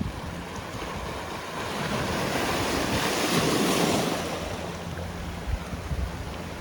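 Sea waves breaking and washing on the shore: one wave swells to a peak about three to four seconds in and then falls away. Low buffeting from wind on the microphone comes through near the end.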